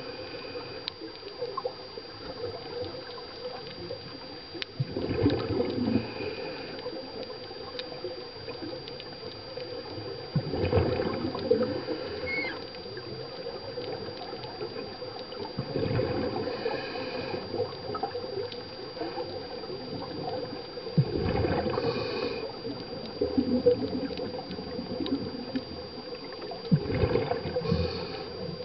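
Scuba diver's exhaled bubbles heard underwater, gurgling in a burst about every five to six seconds, five times, over a murky background with a thin steady high tone.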